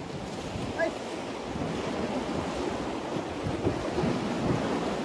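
Sea waves washing against the concrete blocks of a breakwater, with wind buffeting the microphone.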